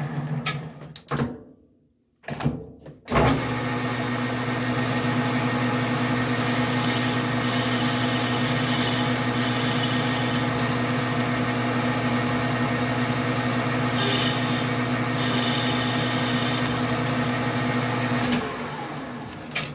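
Metal lathe running steadily with a constant motor hum, starting about three seconds in and stopping shortly before the end. Twice there are stretches of higher hiss while a tool works the spinning brass or steel part.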